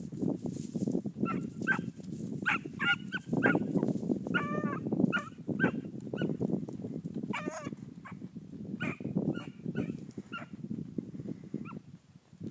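Beagle baying while running a rabbit's scent trail: an irregular string of short barks and bays, with one longer, wavering bawl about four and a half seconds in.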